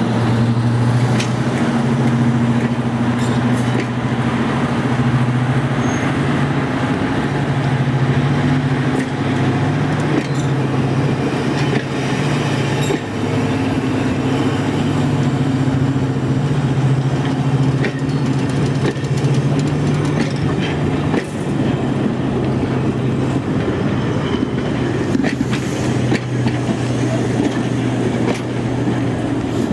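A Class 55 Deltic diesel locomotive, with its twin Napier Deltic engines, hauls a train of coaches past. It gives a steady low engine drone that stops just before the end, over the rumble of the coaches and a few sharp clicks from their wheels on the rail joints.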